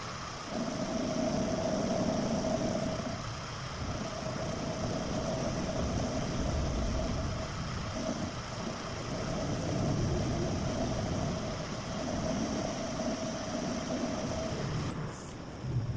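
Machine running steadily with a mid-pitched whine over a low rumble; the whine drops out briefly a few times and stops shortly before the end.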